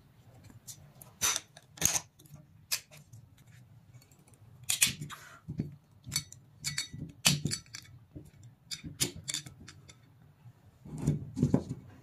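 Sharp plastic clicks and rattles of an EAS security bottle tag and its wire loop being handled and fitted around the neck of a glass wine bottle. A heavier cluster of knocks and clatter comes near the end.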